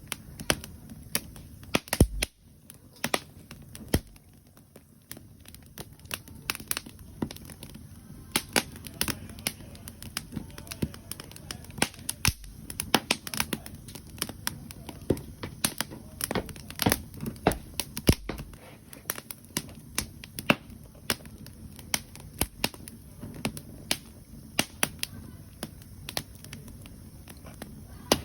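Wood campfire crackling, with irregular sharp pops several times a second over a low steady rumble.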